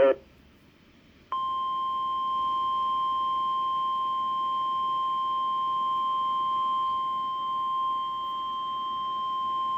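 Weatheradio Canada warning alarm tone: a single steady 1050 Hz tone that comes on a little over a second in and holds without a break. It signals that a weather warning bulletin is about to be broadcast.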